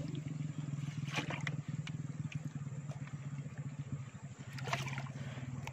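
A steady low motor hum, with a couple of brief splashes in shallow water, about a second in and again near the end.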